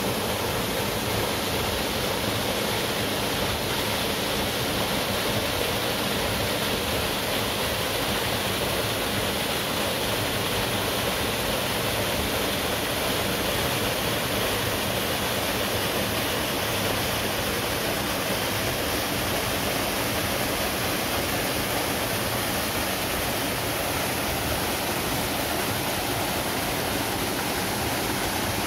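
Waterfall pouring steadily: an even, continuous rush of falling water with no change in level.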